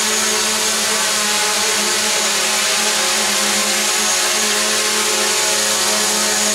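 Small DJI quadcopter drone hovering close by: its motors and propellers give a steady buzz that holds one pitch, with a thin high whine over it.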